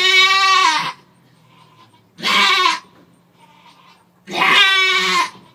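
Doe goat in labour bleating loudly, three long calls a couple of seconds apart, the middle one shorter.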